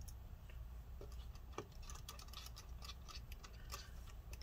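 Faint, irregular light clicks and ticks of a precision screwdriver turning a small T4 Torx screw through a metal plate into a MacBook Pro.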